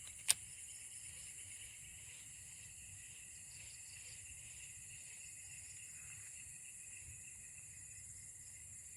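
Faint, steady chorus of insects such as crickets, an even high shrill, with one sharp click shortly after the start.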